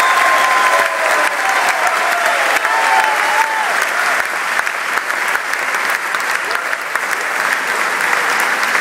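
Large audience applauding steadily, with a few shouts rising over the clapping in the first three seconds or so.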